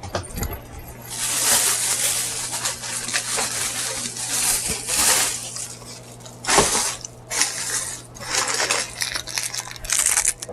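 Rustling and crinkling of plastic food packaging being handled and opened, in uneven bursts with small clicks and taps, over a faint steady hum.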